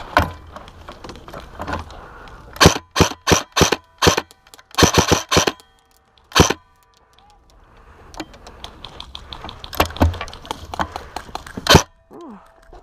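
Airsoft gun firing shot after shot: quick clusters of sharp cracks from about two and a half to six and a half seconds in, then scattered lighter clicks and one more loud crack near the end.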